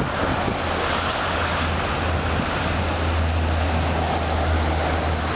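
Blizzard wind blowing steadily across the microphone, with a constant low rumble underneath.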